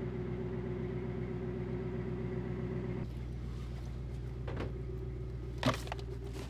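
Pickup truck engine idling steadily, with a couple of short knocks in the second half, the louder one a little before the end.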